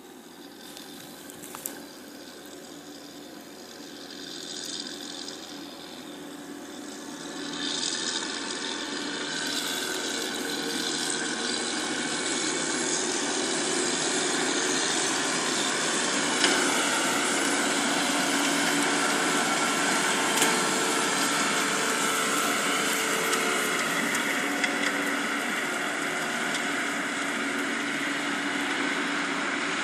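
Engine of a Terragator 8303 self-propelled fertiliser spreader running, growing steadily louder over the first half and then holding a steady level.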